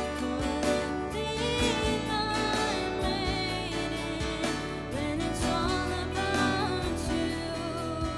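A devotional song played live: a girl's voice singing over a Yamaha PSR-SX700 arranger keyboard and a strummed acoustic guitar.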